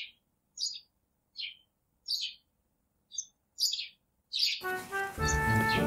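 Small birds chirping in short, separate high calls, roughly one a second, with dead silence between them. Music comes in about three-quarters of the way through, with a couple more chirps over it.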